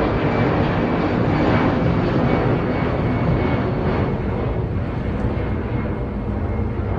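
Airplane passing close while landing: a loud engine rush with a faint high whine that slowly falls in pitch, easing off a little toward the end.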